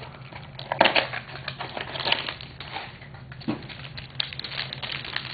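Trading card pack wrapper crinkling and rustling as it is torn open by hand, with cards slid out; irregular crackles, loudest about a second in and again around two seconds in.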